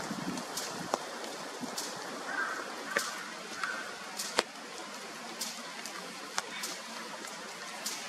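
Steady rain falling, with sharp drips of water striking hard surfaces about once a second.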